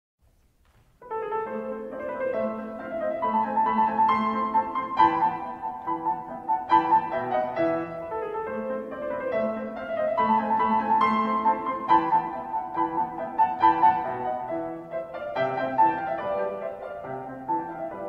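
Background piano music, a slow classical-style piece of held notes and chords, starting about a second in.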